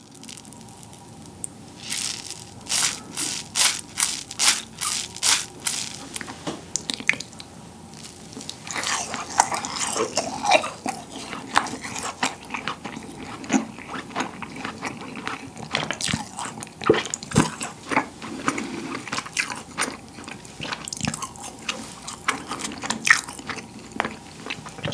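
Close-miked chewing of rasgulla, soft syrup-soaked cheese balls: wet bites and a steady run of sharp mouth clicks and smacks, with squeaky chewing as the springy cheese is bitten through.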